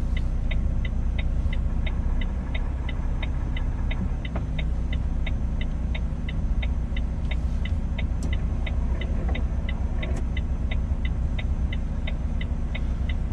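Truck engine and road drone heard from inside the cab, with a steady, even ticking of about three ticks a second.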